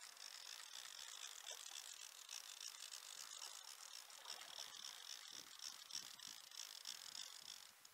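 Fly reel's click-and-pawl drag ratcheting fast and steady while a hooked trout is played, cutting out just before the end.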